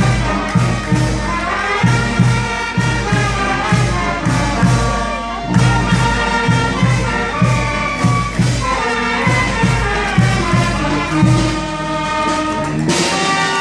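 Loud dance music with a steady beat and melody lines, playing for the dancers; near the end the music changes.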